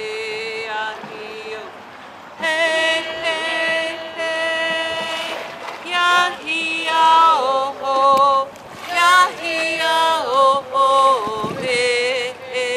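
A woman singing a traditional Northwest Coast Native song, a solo chant of long held notes with vibrato and pitch slides, broken by a short pause about two seconds in.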